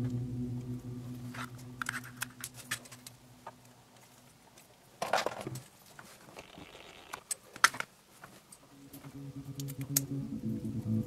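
Lego Technic plastic parts clicking and rattling as they are handled and pressed together: scattered sharp clicks, with a louder cluster about halfway through and a single sharp click a couple of seconds later. Quiet background music fades out partway and comes back near the end.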